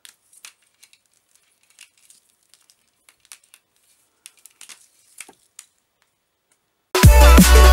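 Faint, scattered rustles and small clicks of a thin USB endoscope cable being handled and dropped on a tabletop, irregular for about five seconds. Loud drum-and-bass music cuts in near the end.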